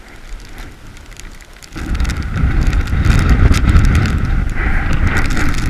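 A sudden gust of wind buffeting the microphone, starting loudly about two seconds in, with sleet ticking throughout.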